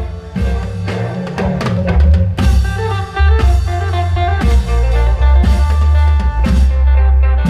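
Klong yao troupe music played through an amplified sound system: drums over a heavy, steady bass, with a melody line of held and repeated notes.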